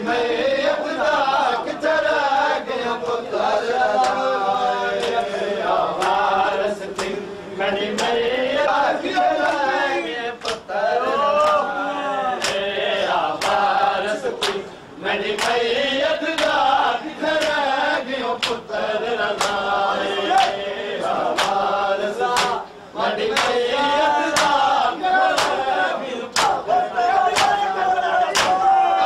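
A group of men chanting a noha in unison, with the sharp slaps of matam, hands striking bare chests, keeping the beat roughly once a second.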